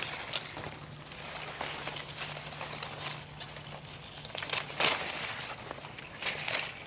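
Rustling and crinkling of guava tree leaves and branches being pushed aside and handled while fruit is picked by hand, with a louder rustle about five seconds in.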